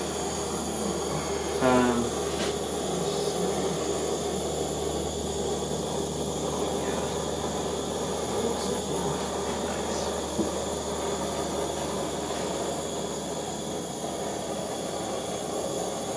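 Handheld paint torch running steadily, its flame played over wet acrylic pour paint to loosen it and bring out the bubbles and cells.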